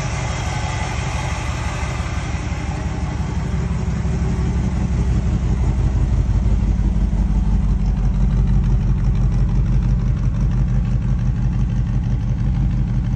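1964 Chevrolet Impala SS's 327 small-block V8, fitted with an Edelbrock carburetor, idling steadily. It gets louder about five seconds in, as the exhaust at the rear of the car is approached.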